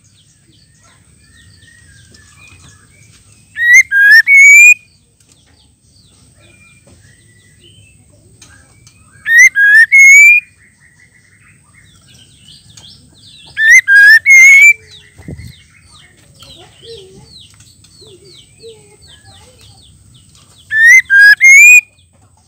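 Female white-rumped shama calling: a loud, short phrase of three or four sharply rising whistled notes, given four times about every five seconds, with soft chirps in between.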